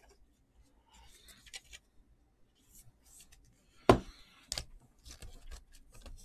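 Baseball trading cards being handled: soft sliding and rustling, with two sharp taps a little under a second apart about four seconds in, the first the loudest.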